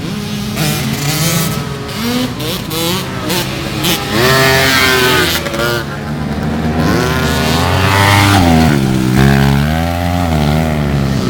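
ATV engines revving during a race, their pitch rising and falling again and again as they accelerate and back off.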